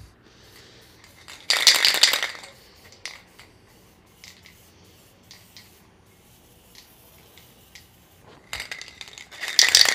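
Aerosol spray paint can hissing in a short burst about a second and a half in, then only faintly, as matte black paint is sprayed onto a steel drawer handle. Near the end come a denser run of light clicks and clatter along with more hiss.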